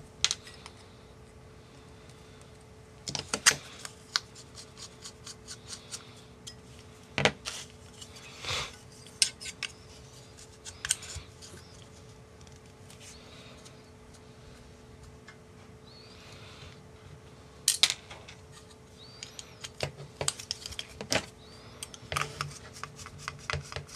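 Sharp clicks and clacks of carbon-fibre drone frame plates and arms knocking together as they are handled and fitted, scattered through, with a quick run of small ticks near the end as a screw is started with a hex driver.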